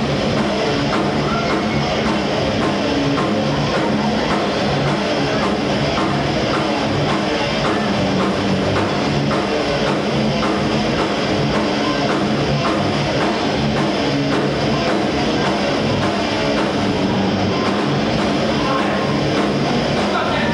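Live heavy metal band playing loud and steady: distorted electric guitar over a drum kit keeping a fast, regular beat.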